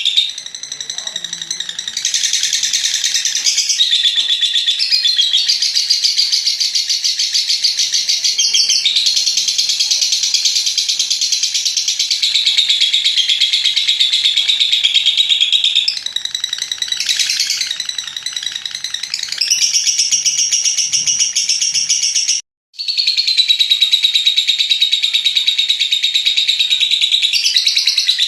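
Lovebird singing its long 'ngekek' song: a fast, high-pitched chattering trill that runs on almost without pause, briefly cutting out about 22 seconds in.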